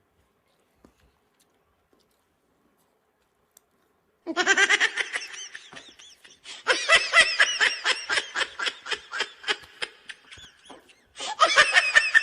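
A person laughing hard in quick, high-pitched pulses, one long bout starting about four seconds in and a second short bout near the end.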